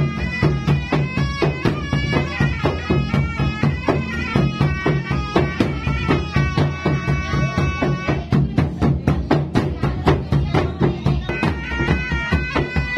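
Makassarese gendang ensemble: a puik-puik double-reed shawm plays a wavering, reedy melody over fast, steady drumming on large double-headed gendang drums beaten with sticks. The shawm drops out for a few seconds past the middle while the drums keep going, then comes back in.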